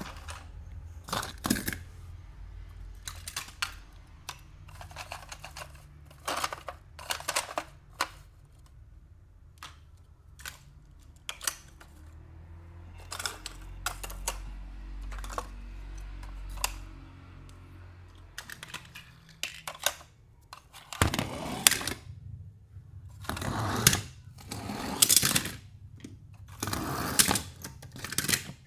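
Small diecast toy cars being handled: a series of sharp clicks and knocks, denser and louder in the last several seconds, over a low hum for most of the first two-thirds.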